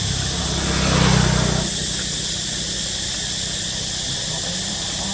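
A motor vehicle passing on the road, swelling to a peak about a second in and fading out by two seconds, over a steady high drone of insects.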